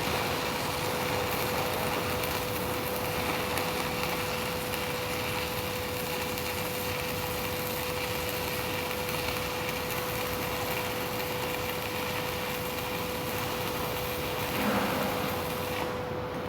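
Steady machine noise with a constant steady tone running through it, swelling briefly near the end.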